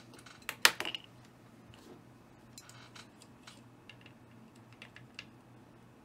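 A few sharp metallic clicks and clinks in the first second, then scattered faint ticks, as a guitar pickup is fitted against a lock clamped in a metal vise. A low steady hum runs underneath.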